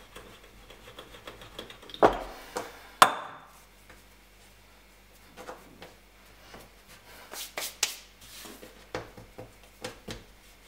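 A wooden rolling pin knocking and rolling on a wooden tabletop as noodle dough is rolled out and folded. Two sharp knocks come about two and three seconds in, then softer scattered taps and rubbing of hands on the floured dough.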